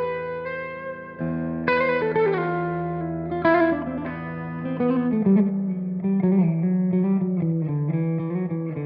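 Electric guitar with humbucker pickups played through the Silver Llama vintage-style amp-sim plugin. Two chords are struck with notes ringing out, then a line of single notes steps down in pitch.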